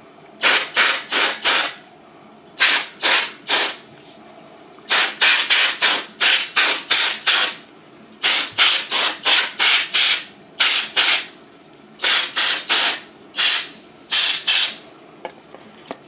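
Can of Dust-Off compressed air duster sprayed in quick short bursts of hiss, two to seven at a time with brief pauses between the runs, blowing dust out of a heatsink and fan.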